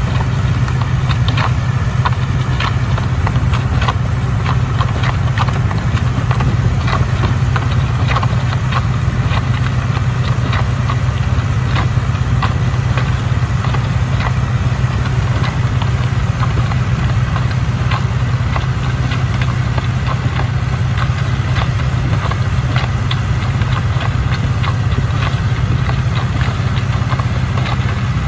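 John Deere 2040S tractor's diesel engine running steadily while it pulls a muck spreader across the field, with a rapid, irregular clatter of short ticks and knocks over the engine drone.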